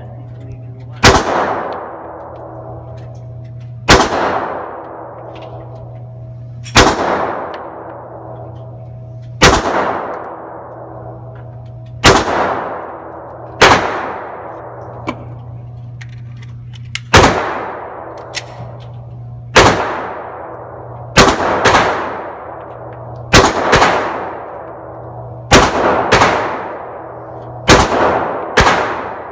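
Glock 43 9mm pistol fired shot by shot, about eighteen shots, each one echoing off the concrete of an indoor range. The first shots come two to three seconds apart; from about two-thirds of the way in they come faster, in quick pairs and triples.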